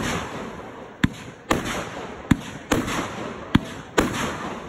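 Consumer aerial fireworks bursting overhead. About six sharp bangs come at uneven intervals of half a second to a second, each trailed by a fading crackle.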